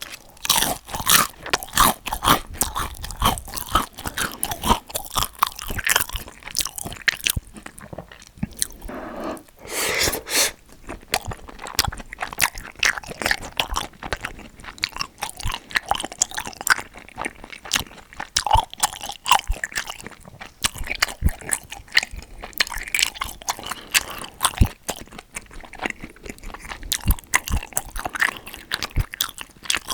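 Close-miked eating: a person biting and chewing food in irregular, continuous mouthfuls, with sharp crunches and wet clicks.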